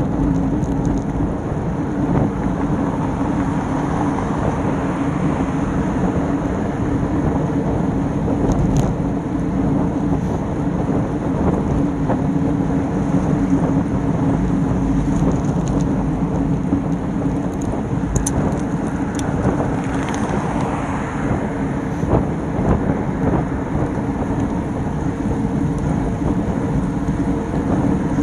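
Wind rushing over the microphone of a handlebar-mounted action camera, with road rumble from a road bike riding at about 20 mph: a steady, loud rushing noise with a low hum underneath.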